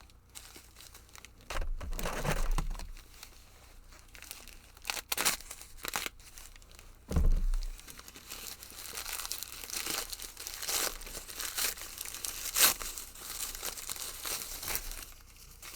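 Packaging crinkling and tearing in irregular handfuls as a small bundle of padlocks is unwrapped, with two dull knocks of the locks being handled, about two seconds in and about seven seconds in.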